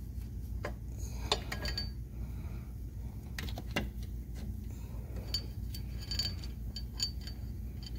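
Steel timing chain links and a cam sprocket clinking and clicking irregularly against each other as they are handled by hand, some clicks ringing briefly.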